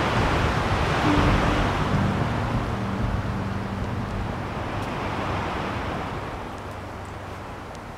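Strong wind rushing through pine trees, swelling in gusts and slowly fading.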